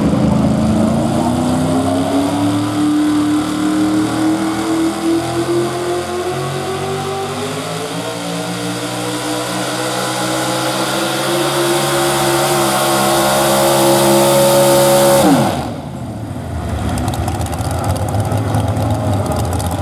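Supercharged V8 of a modified 4x4 pulling truck running at full load as it drags the sled, its pitch climbing steadily for about fifteen seconds. Near the end it drops sharply as the engine is shut off at the end of the run, leaving a lower, quieter rumble.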